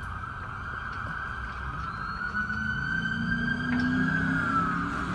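Emergency vehicle siren growing louder as it approaches, its pitch slowly rising and then falling away from about four seconds in, over a low vehicle rumble.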